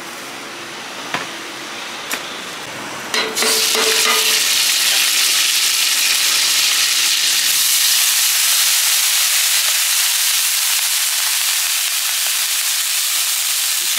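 Food frying on a hot pan. A loud, steady sizzle starts about three seconds in, after a few sharp knocks.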